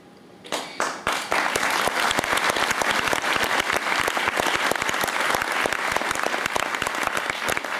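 Audience applauding: a few scattered claps about half a second in, filling out into steady, dense applause by about a second in.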